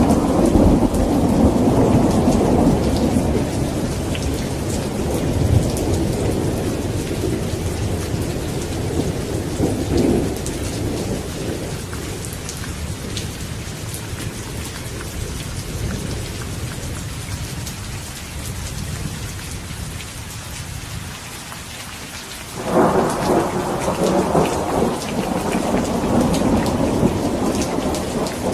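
Steady rain with rolling thunder: a long rumble dies away over the first twenty seconds, then a new peal breaks in sharply a little before the end.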